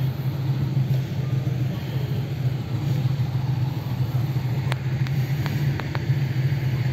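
Steady low mechanical hum of a running vehicle engine, with a few faint clicks about five to six seconds in.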